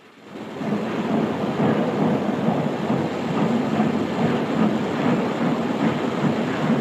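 Steam locomotive running, heard as a steady, dense rushing rumble that swells up over the first second.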